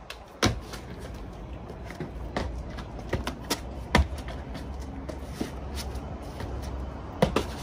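Shoes and hands landing, slapping and scuffing on stone paving during acrobatic flips and floor moves: a string of sharp impacts, loudest about half a second in, about four seconds in, and a quick double hit near the end, over a steady low rumble.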